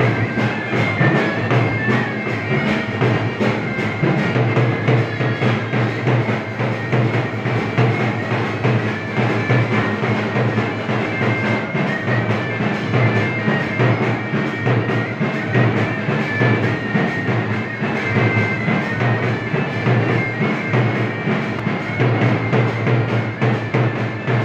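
Live folk band music: a large drum beaten steadily under a high wind-instrument melody.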